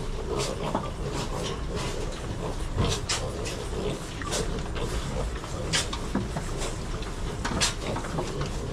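A pen of piglets moving about, with scattered short sharp clicks and knocks, likely trotters on the slatted floor, over a steady low hum.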